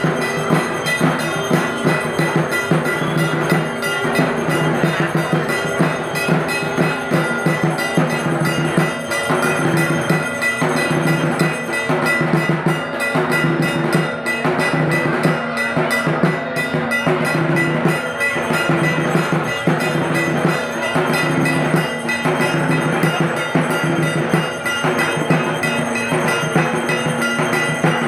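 Drums and ringing metal bells played together as aarti music, a dense, fast, continuous beat with bell tones ringing over it.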